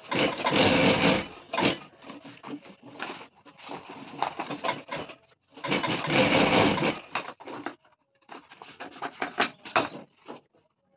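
Industrial sewing machine running in two short bursts of about a second each, about a second in and again near the middle, stitching stiff jute bag fabric. Between the bursts come short rustles and knocks as the jute pieces are handled and turned.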